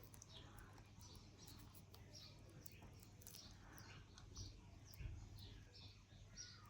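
Faint, quick chirps from a small bird, repeating about twice a second, over a low steady hum, with a few faint light clicks.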